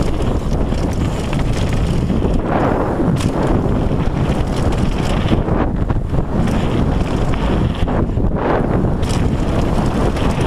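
Wind buffeting an action camera's microphone over the rumble of a downhill mountain bike's tyres on a dirt trail, steady and loud, with several short rasping surges.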